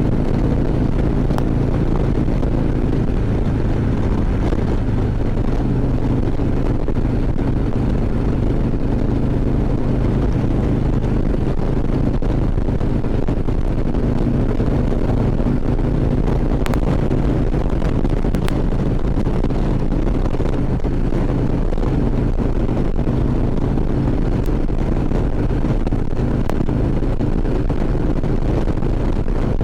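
2014 Harley-Davidson Ultra Classic Limited's V-twin engine running steadily while riding, with wind rushing over the microphone.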